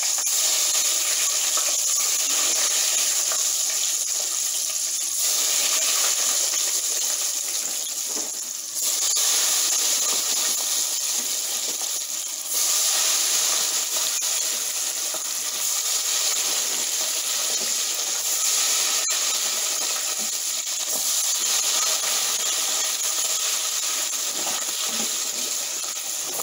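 French fries deep-frying in a pot of hot oil: a steady sizzling hiss as the oil bubbles hard around the freshly added raw potatoes.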